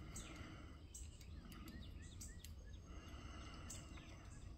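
Faint bird chirping: a string of short calls, each sliding downward in pitch, over a low steady hum.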